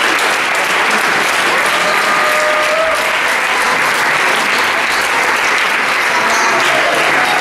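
Theatre audience applauding steadily: dense, even clapping, with a few voices calling out over it.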